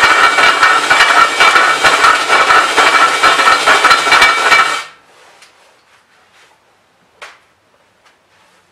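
Handheld drill turning a large Silver & Deming bit to enlarge the oil-fill-tube hole in an aluminium Edelbrock Performer RPM Q-Jet intake manifold. The bit cuts loud and rough with a steady ringing tone, then stops suddenly about five seconds in, followed a couple of seconds later by a single light knock.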